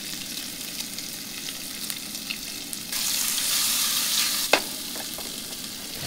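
Walleye fillets sizzling and crackling in olive oil in a frying pan on a camp stove. About three seconds in the sizzle grows louder for a second and a half, then there is a sharp click.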